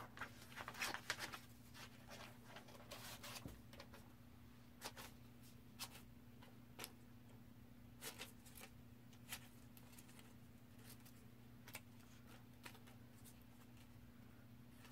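Scissors cutting coloured paper, with the paper rustling: scattered faint snips and crackles, thicker in the first few seconds, over a steady low hum.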